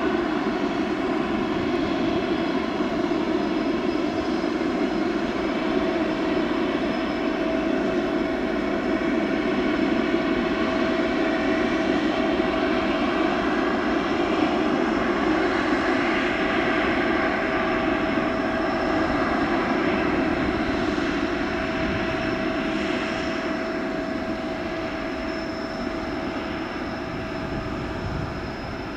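The four Rolls-Royce Trent 500 turbofans of an Airbus A340-600 running steadily with a high whine as the airliner turns on the runway, fading a little near the end as its tail swings toward the listener.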